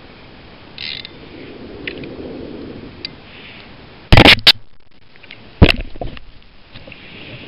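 Spinning reel being cranked against a fish, with a few light clicks, then two loud knocks and rubs on the camera about four and five and a half seconds in as it is bumped.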